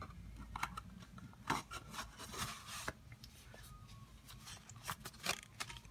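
Pen box sliding against its cardboard outer sleeve and being handled: short rubbing scrapes and light ticks, loudest around one and a half, two and a half, and five seconds in.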